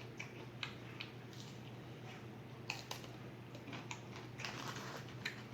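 Close-up chewing with short wet mouth smacks and clicks scattered through, over a low steady hum.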